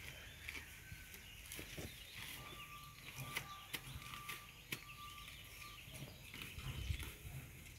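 Faint rustling and snapping of grass and weeds being pulled by hand from a garden trench. For a few seconds in the middle, a steady high beep repeats about every 0.7 s.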